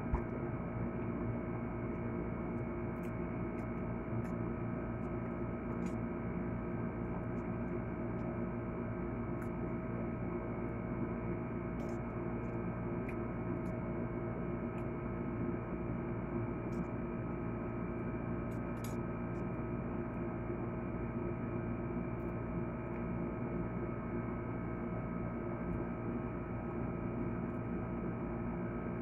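A steady electrical hum made of several unchanging tones, with faint scattered clicks.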